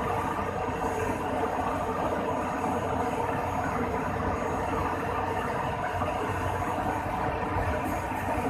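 Steady running drone from an Airbus A300-600 during an operational check, with a constant low hum and a faint steady high whine.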